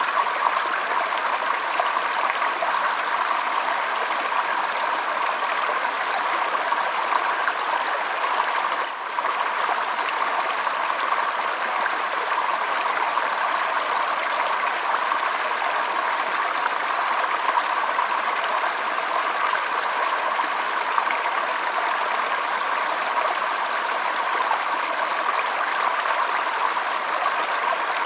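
Running water rushing steadily, like a stream over stones, with a brief dip in level about nine seconds in.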